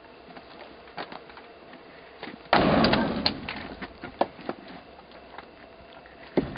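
An axe strikes a round of firewood on a chopping block about two and a half seconds in. It gives one loud sudden crack, followed by the clatter of split wood falling. Lighter knocks of wood being handled come before and after it, with another sharp knock near the end as the next piece is set on the block.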